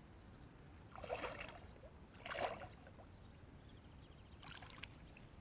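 Two brief, faint water splashes about a second apart.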